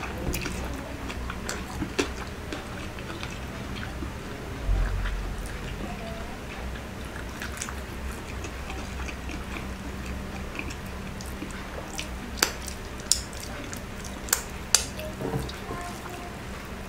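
Close-miked eating sounds of someone chewing rice and saucy pork eaten by hand, with wet mouth noises. There is a low thump about five seconds in and a few sharp clicks about twelve to fifteen seconds in, over a steady low hum.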